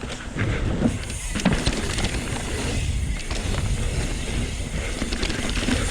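Pivot Switchblade mountain bike with carbon wheels being ridden fast down a dirt trail: a continuous rumble of tyres and wind, with scattered clicks and knocks from the bike as it runs over rough ground.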